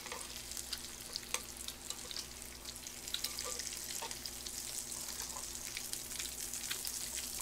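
Pork belly sizzling in its own fat on a grill pan: a steady hissing sizzle, with scattered light clicks of chopsticks turning the meat.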